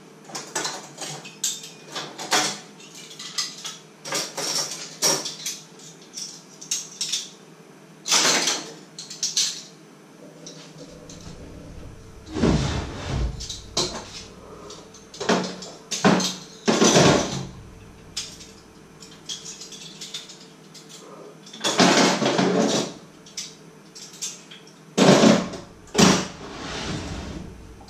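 Metal cutlery and kitchen utensils clinking and clattering as they are handled: a run of short clicks through the first half, then several longer, louder clattering bursts.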